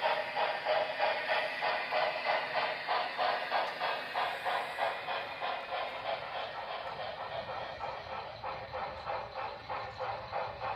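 Sound-equipped HO-scale model steam locomotive chuffing steadily at about four beats a second, growing gradually fainter.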